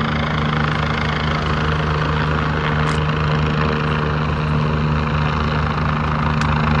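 Helicopter hovering overhead: steady low rotor chop with a fast, even beat under the drone of its engine.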